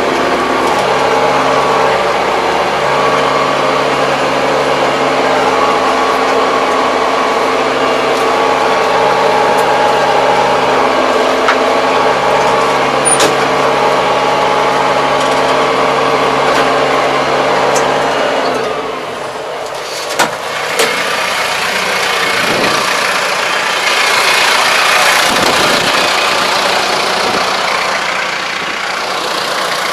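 Diesel engine of a 75 hp Kubota tractor running steadily at a constant speed, heard from inside the cab. About two-thirds of the way through, the engine sound drops away and gives way to a rustling outdoor noise with a couple of sharp clicks.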